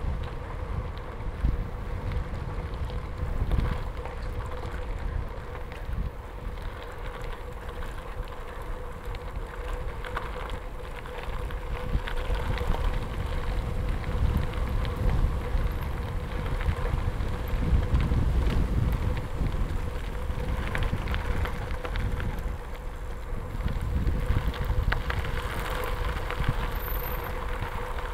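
Bicycle tyres rolling over a gravel road: a steady low rumble scattered with small rattles and crunches, under wind rushing over the microphone.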